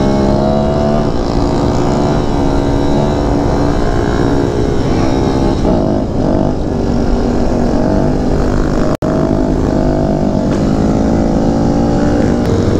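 Kawasaki Z125 Pro's small single-cylinder engine running under way, its pitch climbing and dropping several times as it is revved and shifted, with wind noise underneath. A brief gap in the sound about nine seconds in.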